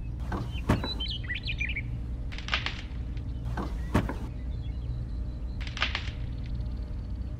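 Birds chirping briefly about a second in, over a steady low hum, with a few short scraping sounds spaced a second or two apart.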